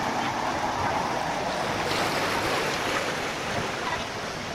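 Steady rushing of water, as in a canal lock filling or emptying.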